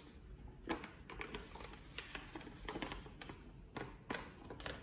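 Faint, irregular light clicks and taps of hands handling a wig on a canvas block head.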